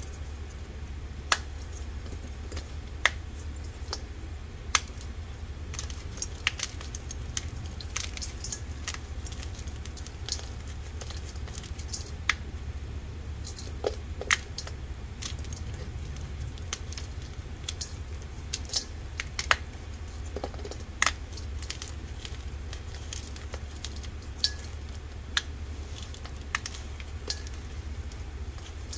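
Boiled, dyed gym chalk block crushed by hand in a stainless steel bowl: irregular crunches and sharp crackles as chunks snap and crumble, with a steady low hum underneath.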